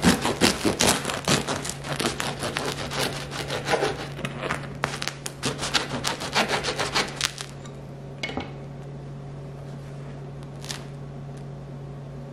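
Bread knife sawing through a crusty loaf of homemade bread on a wooden cutting board in quick back-and-forth strokes. It stops about seven and a half seconds in.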